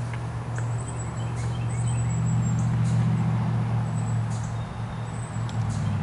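A steady low mechanical hum, swelling a little in the middle, with birds chirping over it in short, high notes.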